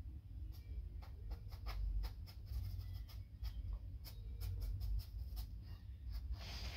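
Drawing tool scratching across a large board in many quick, short strokes, over a steady low rumble.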